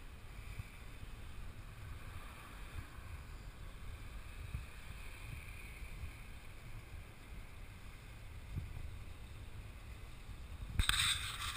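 Wind rumbling on the microphone of a handheld action camera, low and steady, with a louder burst of rustling noise near the end.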